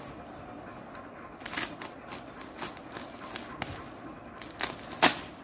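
Plastic bubble wrap crinkling and crackling as it is handled, with irregular sharp clicks and one loud snap near the end.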